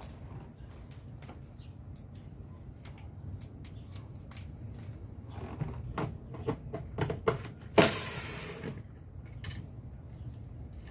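Hand tools working on a car's interior door panel and handle fittings: scattered small clicks and knocks of metal and plastic, then a loud scrape lasting about a second near the end.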